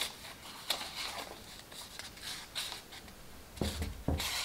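Cardstock rustling and crinkling as hands fold and handle paper triangles for creasing, with a couple of soft knocks against the tabletop near the end.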